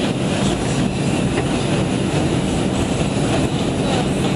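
R142 subway train running at speed through a tunnel, heard from inside the car: a steady, loud rumble of wheels on rail with a low, even hum.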